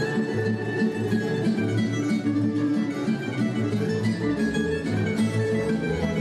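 Tamburica ensemble playing a folk tune: small plucked tamburicas carry the melody over a double bass (berde) marking a steady bass beat.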